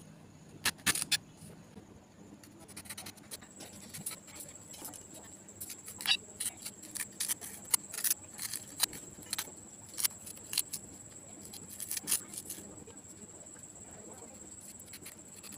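Serrated kitchen knife clicking and scraping against raw green banana peel and a stone countertop while the bananas are trimmed and peeled: a string of sharp, irregular clicks and scrapes, thickest in the middle of the stretch.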